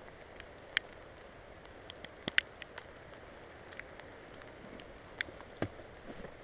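Scattered light clicks and clinks, about eight over several seconds, the sharpest a pair a little over two seconds in, over a faint steady hiss.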